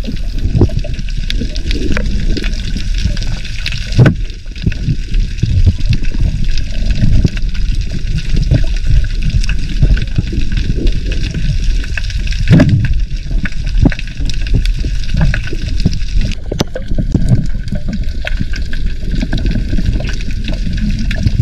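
Muffled underwater water noise and gurgling picked up by a submerged action camera, with sharp knocks about four seconds in and again about twelve seconds in.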